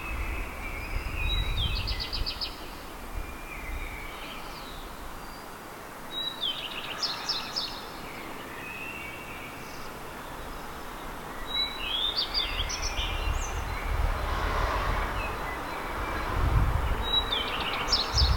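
A songbird singing at night, repeating a short phrase about every five seconds: a sharp high note followed by a quick run of high notes. A low rumble of background noise sits underneath, stronger near the start and toward the end.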